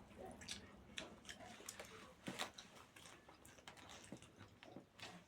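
Faint eating sounds: chewing with scattered soft clicks.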